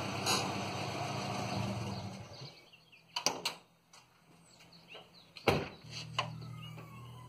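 A Subaru's turbocharged flat-four engine runs at a low, steady pace, then fades out about two and a half seconds in. A few sharp clicks and knocks follow, the loudest about five and a half seconds in, and a low steady hum comes back near the end.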